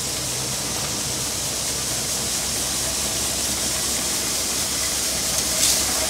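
Corn thresher running steadily, with the hiss of shelled maize kernels pouring from its delivery spout onto the heap. A brief, louder burst of noise comes near the end.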